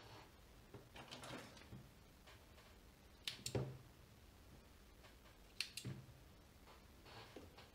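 Quiet handling noises: a few soft knocks and clicks as a roll of adhesive tape and other items are set down on a silicone repair mat. The loudest knock comes about three and a half seconds in, with another pair near six seconds.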